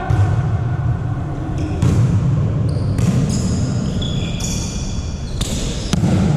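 Volleyball being played indoors: a few sharp ball hits, with short high-pitched squeaks between them, over the steady low rumble of the hall.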